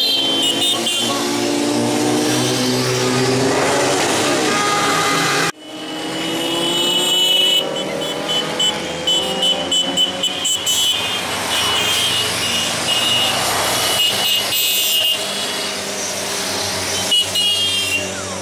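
Several road vehicle engines running and passing, their pitch sliding up and down as they go by. The sound breaks off abruptly about five and a half seconds in, then picks up again.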